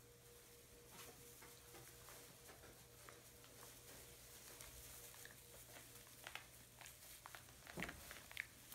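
Faint rustling and crackling of loose straw under puppies' paws as they walk about. The crackles get busier toward the end, with a few sharper clicks, over a faint steady hum.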